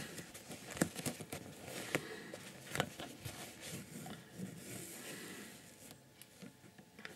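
Faint rustling of fingers handling a needle and cotton thread over the paper pattern as the thread is drawn through and laid across, with a few light ticks in the first three seconds.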